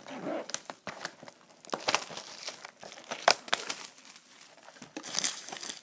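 Plastic shrink-wrap crinkling and tearing as a sealed box of trading cards is unwrapped by hand: irregular crackles and rustles with a few sharper snaps.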